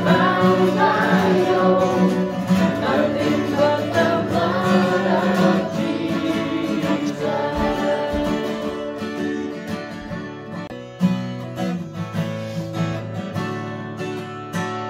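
Church worship band music led by acoustic guitar, with sustained chords; the music dips about ten seconds in and the guitar comes back in strumming.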